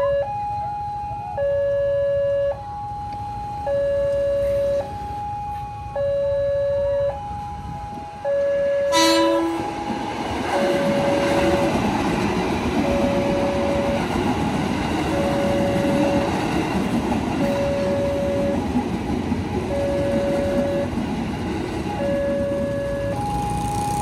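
Railway level-crossing alarm sounding its electronic two-tone warning, alternating a low and a higher tone of about a second each. About nine seconds in comes a brief train horn blast. A KRL Commuterline electric train then passes with a steady rumble of wheels on rails under the ongoing alarm.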